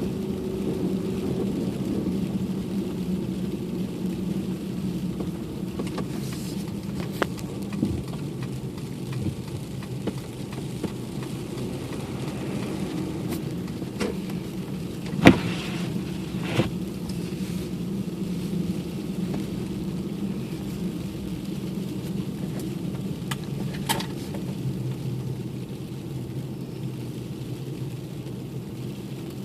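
Car driving on a snowy road, heard from inside the cabin: steady engine and tyre noise with a few sharp clicks or knocks, the loudest about halfway through.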